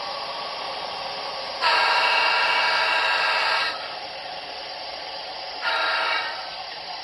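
HO scale model trains running on the layout with a steady rolling noise, and a model locomotive's sound unit blowing its horn: one long blast of about two seconds, then a short one near the end.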